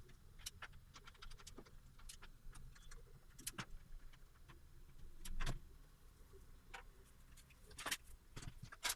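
A PC case's side panel being taken off: scattered small clicks and taps of metal and screws being handled, with louder knocks about three and a half and five and a half seconds in and a cluster of knocks near the end.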